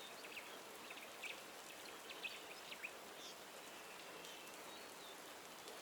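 Soft, faint steady rain with a few short, high bird chirps scattered through it.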